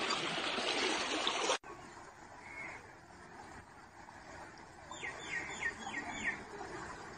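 Floodwater sloshing and splashing as a person wades through it, cutting off abruptly after about a second and a half. Then comes quieter outdoor ambience, in which a bird gives a quick run of five falling chirps near the end.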